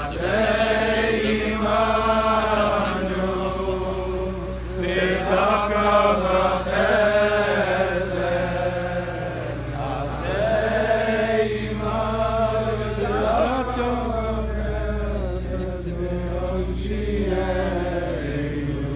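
A crowd of men singing together in unison, a slow, chant-like melody with long held notes, over a low steady rumble.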